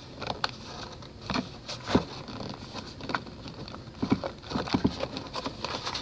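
Hard clear plastic packaging of a Fidget Cube being pried and twisted open by hand: irregular plastic clicks, creaks and scrapes.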